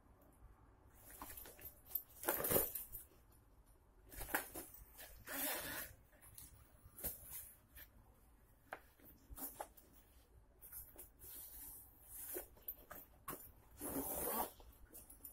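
Zippers of a tactical backpack pulled by hand in several short runs, with the fabric rustling and small clicks and knocks in between.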